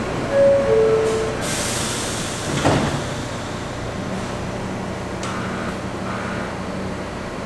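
Subway train's door chime, two short descending tones, followed by a hiss and the sliding doors thudding shut about two and a half seconds in; then a steady low hum from the standing train.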